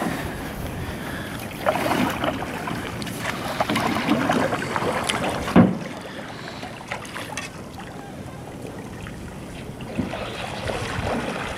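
Paddles dipping and splashing as an aluminum canoe is paddled through still floodwater, with a few sharp knocks. The sound grows fainter after the midpoint as the canoe moves off.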